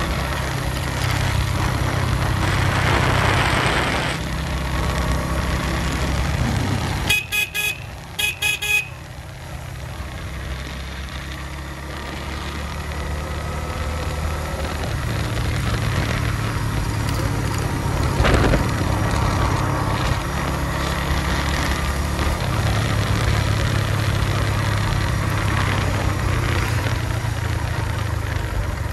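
Suzuki GS150 single-cylinder motorcycle engine running under way. About seven seconds in the engine drops back and a horn beeps several times in two quick groups, before the engine picks up again.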